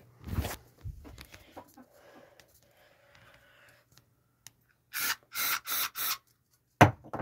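Aerosol deodorant can sprayed in four short hissing bursts about five seconds in, aimed at a smoke detector to set it off. A single sharp knock follows just before the end.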